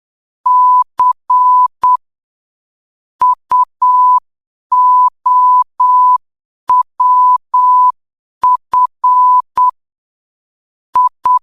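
Morse code sent as a steady beep of about 1 kHz, keyed into short dots and long dashes. The letters come in small groups separated by longer pauses.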